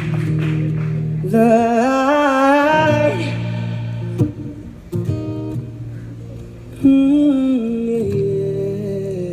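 Live band playing: acoustic guitar and electric bass over a steady low line, with wordless singing in two long, wavering melody phrases, one about a second in and one from about seven seconds in.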